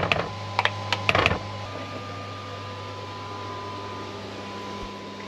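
A spoon knocking and clicking against a mixing bowl several times in the first second and a half while pancake batter is stirred, then a steady mechanical hum with a faint high tone.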